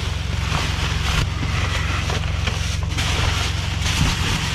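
A steady low hum of an idling engine under a continuous hiss of noise.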